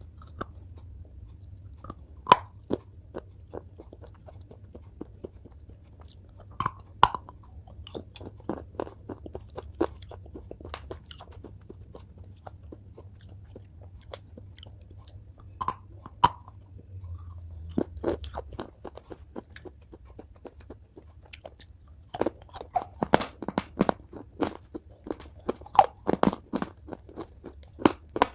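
Close-miked biting and crunching of a brittle lollipop-shaped item being eaten: sharp single bites every few seconds, then rapid, continuous crunching in the last quarter. A low hum sits underneath for the first two-thirds, then stops.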